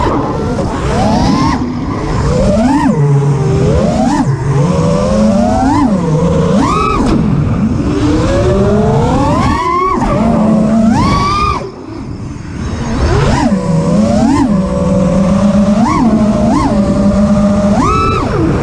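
FPV quadcopter's brushless motors and propellers, heard through the onboard camera, whining and repeatedly rising and falling sharply in pitch as the throttle is punched and eased. The throttle drops off briefly about twelve seconds in, then comes back up to a steady whine.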